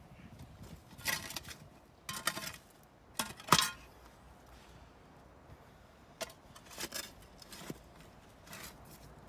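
Digging: the metal blade of a digging tool scraping and clinking into soil and stones, about seven strokes at uneven intervals, the loudest about three and a half seconds in.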